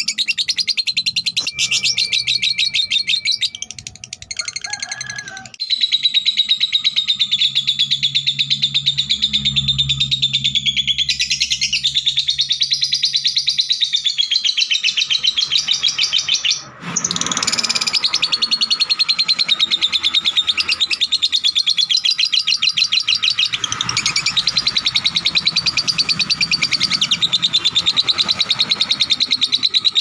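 Blue cobalt lovebird chattering in a long, fast, unbroken run of shrill chirps. The run breaks off only briefly twice, once after about four seconds and once just past the middle.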